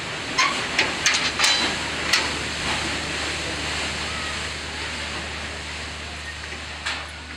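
Paddle steamer lying at the landing stage, a steady hiss over a low machinery hum, with a quick run of sharp knocks and clanks in the first two seconds and one more near the end.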